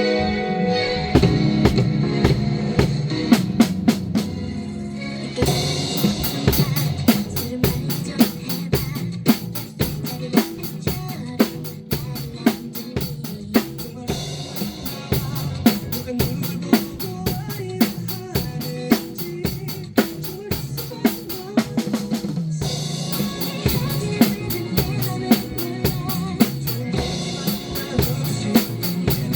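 Drum kit played in a steady beat of bass drum, snare and cymbals, along with a recorded song. The cymbals come in about five seconds in and drop out for a moment near the end.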